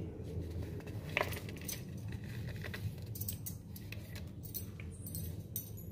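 Scattered light clicks and clinks of kitchen items being handled, over a steady low hum, with a brief squeak about a second in.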